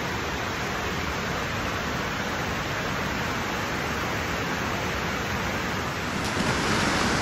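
Steady rush of water pouring over a dam, an even hiss with no rhythm, growing a little louder near the end.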